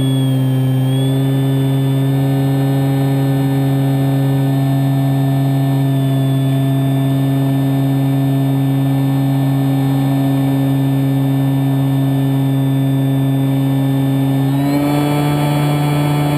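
Scorpion 4020-10 brushless electric motor of a Kyosho Spitfire 50 EP RC plane, turning an 11x10 APC propeller in flight and heard from on board: a steady whine over a hiss of air. About 14.5 seconds in, the pitch steps up and the whine grows busier as the throttle is opened.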